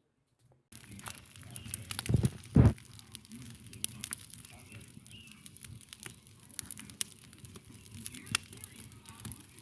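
Campfire crackling with frequent sharp pops, starting a moment in after a brief silence, with a couple of low thuds about two seconds in.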